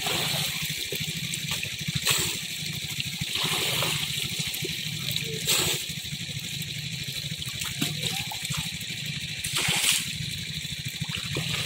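Water running steadily through a muddy channel, with a low hum underneath. Three brief louder rushes come as bowlfuls of wet fish are scooped from a wicker basket and tipped into a plastic crate.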